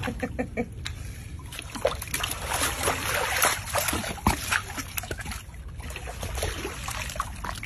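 Water splashing and sloshing in a shallow pool around a large alligator, with short sharp clicks scattered through it.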